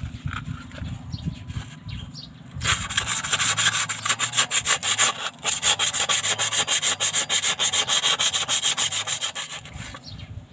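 Sandpaper rubbed by hand over a welded stainless-steel exhaust tip: rapid back-and-forth scratching strokes that start a few seconds in and stop shortly before the end.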